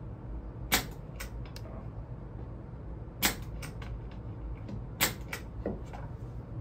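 Brad nailer firing nails into plywood panels: three sharp shots about two seconds apart, each followed by a few lighter clicks and knocks of the wood being handled.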